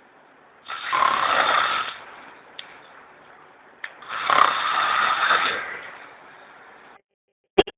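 A person snoring: two long snores about three seconds apart. The sound cuts off near the end, followed by a sharp click.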